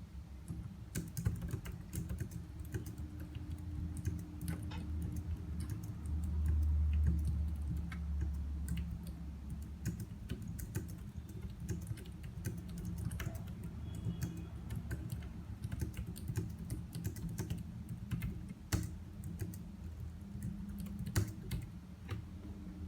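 Fast, irregular typing on a Logitech K380 Bluetooth keyboard: quiet, rapid key clicks from its low-profile round keys, over a steady low hum.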